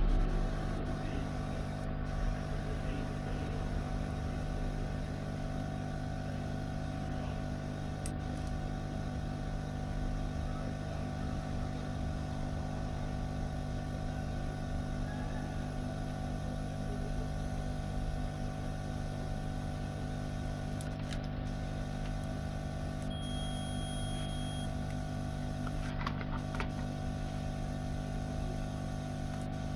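A steady mechanical hum throughout, with a few faint handling clicks. About 23 seconds in, a digital clamp multimeter in continuity mode gives one high beep lasting about a second and a half as its probes meet a connected path on the motherboard: the meter's signal for a short while checking capacitors.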